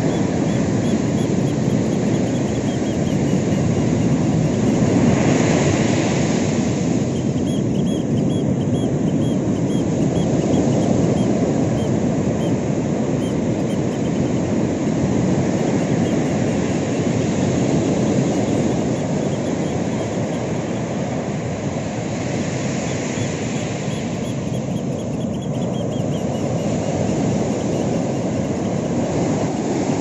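Ocean surf: a continuous low rumble of waves breaking and washing up a sandy beach. It swells louder and hissier as a wave breaks about five seconds in, and again a little past twenty seconds.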